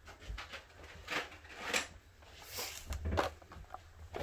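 Blister-carded Hot Wheels die-cast cars being handled and set down on a countertop: a handful of short plastic clicks and taps with light rustling between them.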